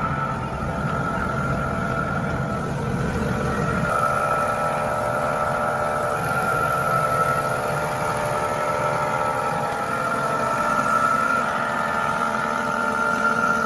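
Plastic rope production machinery running steadily, a constant high whine over a low motor hum.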